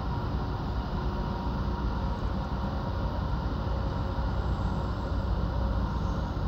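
Steady low rumble of a large container ship's engines passing close by, with a faint steady hum above it.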